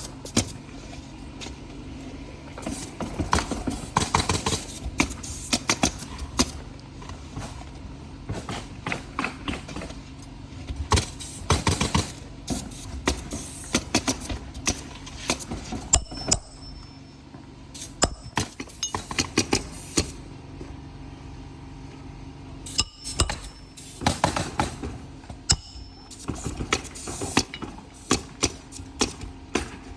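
Flat bar working roofing nails out of asphalt shingles: bursts of sharp metallic clicks and scraping, in clusters with short pauses between, over a steady low hum.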